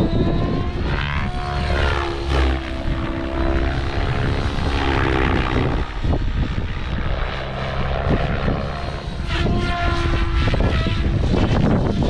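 OMPHOBBY M7 radio-controlled helicopter flying without its canopy: the rotor and motor whine rises and falls in pitch as it manoeuvres. Strong wind buffets the microphone with a low rumble underneath.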